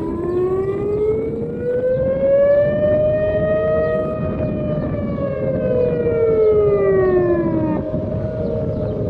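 Civil defence warning sirens sounding in a test of the public emergency alert system. They wail in a slow rise and fall, with one long swell that peaks about three and a half seconds in and sinks until near the end, when a new rise begins. A second siren overlaps out of step with the first.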